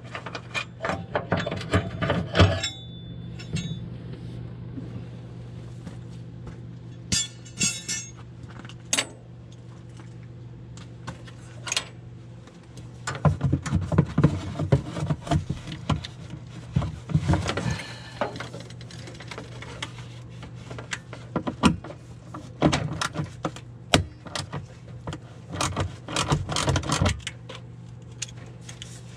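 Metal tools and parts clinking and rattling in irregular bursts as someone works by hand in a utility vehicle's engine bay, over a steady low hum.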